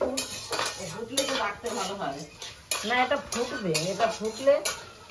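Pumpkin seeds frying in a lidded aluminium pan, popping and clicking against the metal in quick, irregular ticks, with a woman's voice over them.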